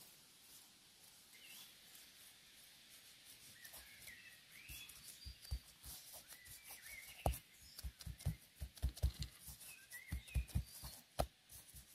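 Small birds chirping and twittering throughout. From about halfway in there is a quick run of soft, dull knocks and thuds as gloved hands press and roll dough on a plastic cutting board; these knocks are the loudest sounds.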